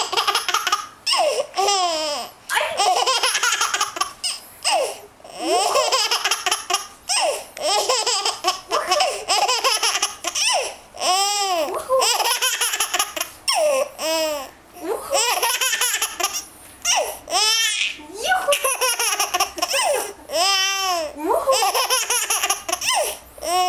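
A 6½-month-old baby girl laughing hard in repeated bursts, some rising into high-pitched squeals, excited by a game of peek-a-boo.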